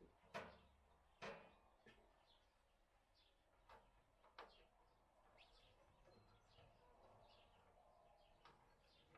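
Near silence with faint bird chirps throughout, broken by two sharp knocks in the first second and a half and a few softer taps later.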